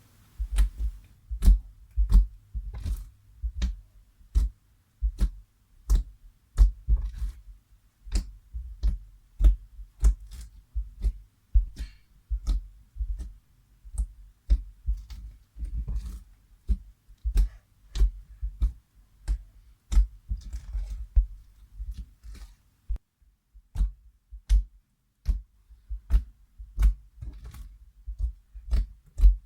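Slime mixed with small beads being squeezed and poked by hand, giving a steady run of sharp clicking pops, each with a soft low thud, one or two a second.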